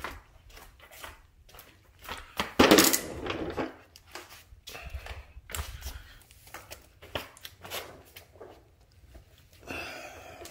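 Footsteps on interlocking plastic garage floor tiles and handling noise, scattered knocks and clicks, with a loud rustling clatter about two and a half seconds in and a short whine near the end.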